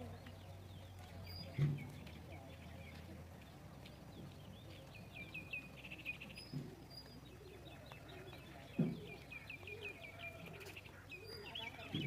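Birds chirping in quick runs of high notes. There are a few low thumps, the loudest about two and nine seconds in.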